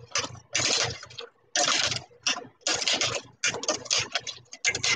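Sauced fried shrimp being stirred and pushed around in a stainless steel saucepan: a string of short scraping, wet handling noises, roughly two a second, with brief gaps between them.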